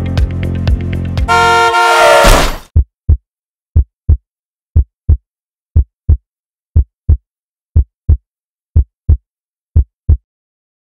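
Electronic music cuts off and a car horn sounds for about a second, ending in a short, loud burst of noise. Then a slow heartbeat sound effect: eight double beats, about one a second, that then stop.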